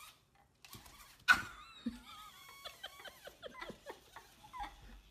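A small animal's short, high squeaks in quick succession, with a sharp knock about a second in.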